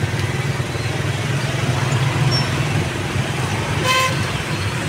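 Steady low engine rumble of road traffic, with a short vehicle-horn toot about four seconds in.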